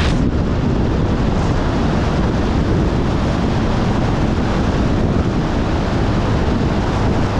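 Wind buffeting the action-camera microphone of a Kawasaki ZRX1100 under way, with the bike's inline-four engine running steadily underneath.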